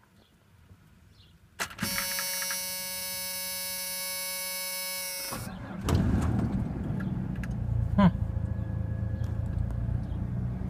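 A click and a steady whine for about three and a half seconds as the key is turned, then the 1995 Ford F-150's 4.9-litre straight-six fires about five and a half seconds in and settles into a steady idle on a cold start after sitting for months on a jumped battery.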